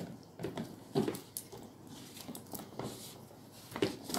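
Light plastic knocks and rubbing as a carbon filter cartridge is seated in its housing on an under-sink water purifier. The loudest knock comes about a second in, with a few more near the end.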